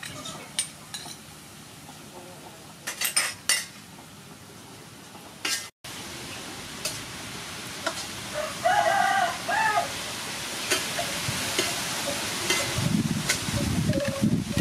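Beef frying and sizzling in a wok while a metal spatula stirs and scrapes it, the sizzle building over the second half. A rooster crows about nine seconds in, and there are a few light taps earlier on.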